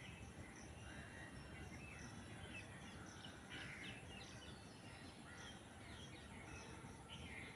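Faint outdoor ambience of several birds chirping and calling in short, scattered notes over a low steady background rumble.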